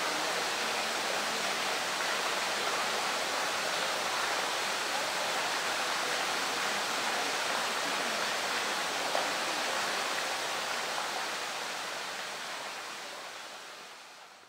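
A thin jet of water pouring into a pool, splashing steadily on the surface, fading out near the end.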